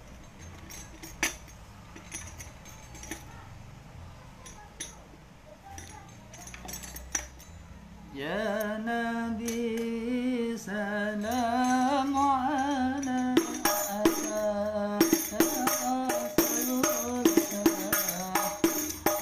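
Rebana frame drum struck by hand, a few sparse strikes at first. About eight seconds in, a voice starts singing a wavering devotional melody. From about thirteen seconds the rebana plays a steady, dense lanangan rhythm under the singing.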